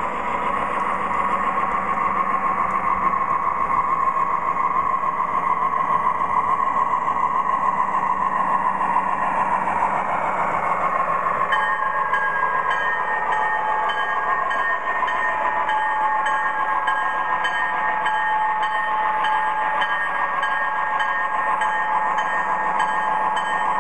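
O scale MTH Premier Conrail GP40 model diesel locomotive running, its onboard speaker playing diesel engine sounds over the rolling noise of its wheels on the track. About halfway through, the model's locomotive bell sound starts ringing, with strikes about twice a second.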